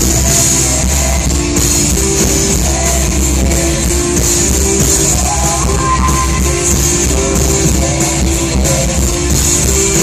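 Live rock band playing, with electric guitars and drums.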